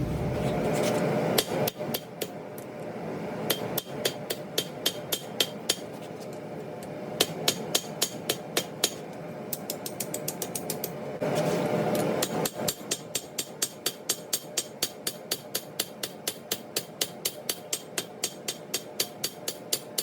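Hammer blows forging bevels into a leaf-spring steel knife blade: a long run of sharp, ringing strikes that settles into an even rhythm of about four a second in the second half. A steady rushing noise sits under the start and returns briefly about eleven seconds in.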